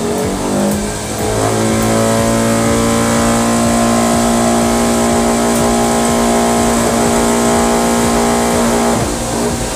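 Electric motor of a home-built cotton candy machine spinning up the spinner head: a whine that rises in pitch over the first second and a half, then holds steady, and drops away about nine seconds in.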